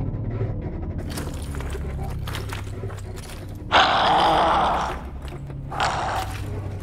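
Electroacoustic film score: a low droning hum made of several steady deep tones. A little past halfway a loud, harsh, rasping noise cuts in for about a second, and a shorter one comes near the end, like a distorted growl.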